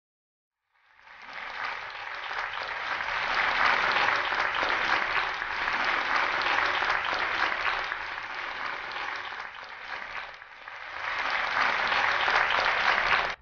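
A group of people applauding. The applause starts about a second in, dips briefly near the end, swells again and then cuts off abruptly.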